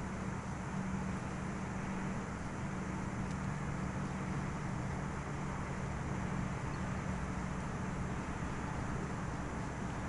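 Steady low drone of distant motor traffic, a faint hum that drifts slightly in pitch over an even outdoor hiss.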